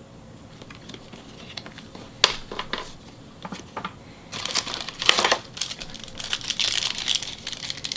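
Trading-card pack wrapper crinkling as it is handled and opened, with a few soft clicks of cards being handled first; the crinkling becomes dense about four seconds in.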